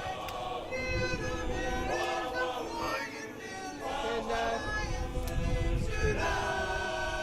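Barbershop chorus singing a cappella in four-part close harmony, holding and shifting chords; the song features the tenors.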